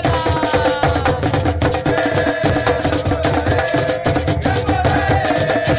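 A hand-percussion ensemble plays a busy, steady rhythm: a stick hits a skin-headed drum, alongside tumbadoras (conga drums). Held pitched notes that slide from one pitch to the next run over the drumming.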